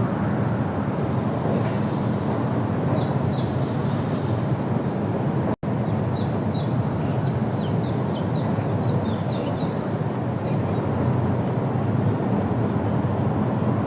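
A bird calling in quick runs of short, high, downward-slurred chirps, once about three seconds in and again in a longer run from about six to nine and a half seconds, over a steady low rumbling background noise. The sound drops out for an instant about halfway through.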